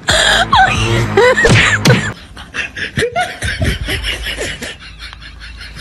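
Laughter over background music, loudest in the first two seconds and quieter after that.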